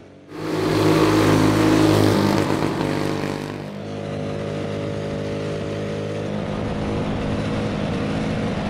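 212cc single-cylinder go-kart engine running hard at high, fairly steady revs. It cuts in sharply just after the start and is loudest for the first three seconds, then runs on a little quieter and duller.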